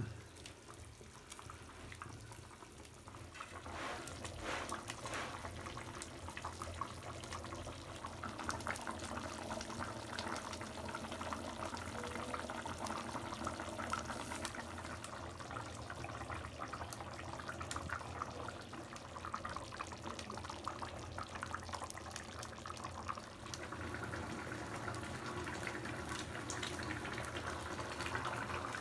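Steady running, trickling water, dotted with small clicks.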